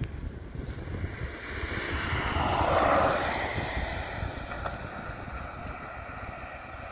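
A car passing by on a road, its tyre and engine noise swelling to a peak about three seconds in and then fading, with wind rumbling on the microphone.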